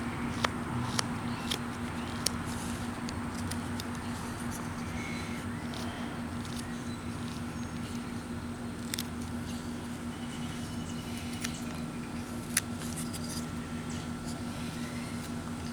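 Knife whittling wood: the blade scrapes and clicks irregularly as it takes small cuts and chips. A steady low hum runs underneath.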